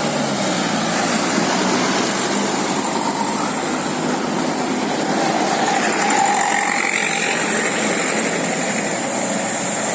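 Steady road traffic noise: vehicle engines and tyres running past, with no horn sounding.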